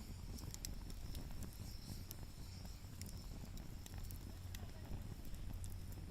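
Wood fire crackling, with scattered sharp pops and ticks over a low steady rumble.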